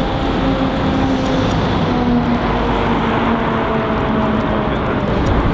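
City street traffic: a steady engine hum that sinks slowly in pitch, over the noise of passing cars.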